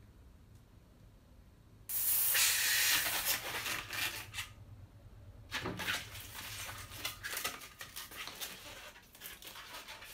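A green latex twisting balloon being inflated by a pump: air hisses loudly and evenly for about two and a half seconds, starting suddenly about two seconds in. After that come scattered squeaks and rubbing of the inflated latex as fingers handle and knot its end.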